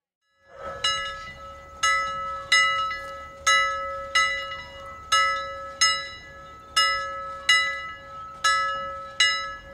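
Handbell rung over and over in a swinging rhythm, about eleven strikes roughly every 0.7 to 1 second. Each ring carries on under the next. It starts about half a second in.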